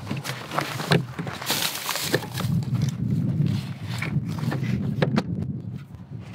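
Rummaging in a metal cooler box: plastic food bags rustling and items knocking inside, then the lid is shut with a couple of sharp knocks about five seconds in.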